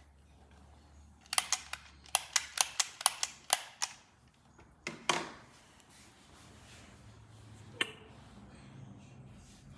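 Plastic toy camera clicking: a quick run of about ten sharp clicks over two and a half seconds, then a short burst of noise and one more click later.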